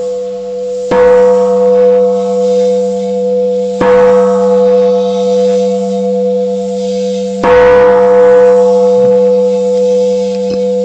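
Large temple bell struck three times, about three seconds apart, each strike ringing out over a steady hum. The three strokes call the start of Buddhist chanting.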